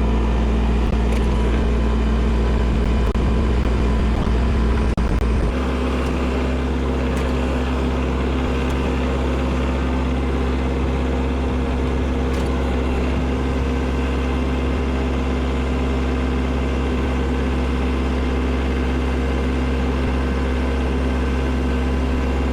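Kubota tractor's diesel engine running steadily under snow-removal work. About five seconds in, its sound changes abruptly and gets slightly quieter, then holds steady.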